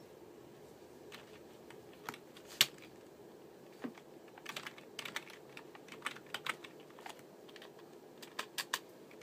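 Computer keyboard being typed on: irregular key clicks, sometimes in quick little runs, with one sharper click about two and a half seconds in. A low steady hum runs underneath.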